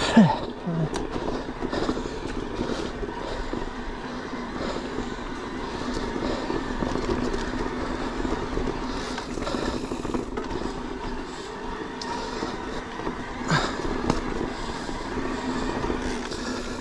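Electric mountain bike riding on a rough trail: the motor whines steadily under pedal assist over tyre and drivetrain rumble. There is a sharp knock just after the start and another near the end.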